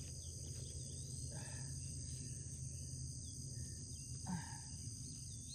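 Steady high-pitched insect chorus over a low steady hum, with two short faint sounds, one about a second and a half in and one about four seconds in.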